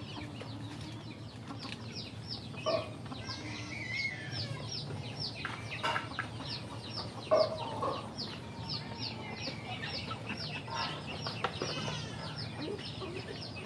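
Backyard chickens and ducklings: a rapid run of high, falling peeps, about three a second, with a few louder, lower calls breaking in now and then.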